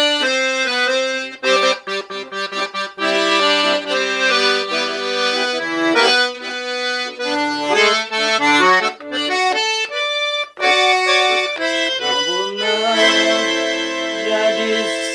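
Accordion playing a melody over chords in A minor, the notes changing quickly, with a brief break about ten seconds in and a held chord near the end.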